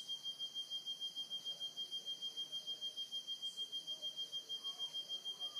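Nocturnal cicada singing: one steady, high-pitched tone that pulses evenly about six times a second.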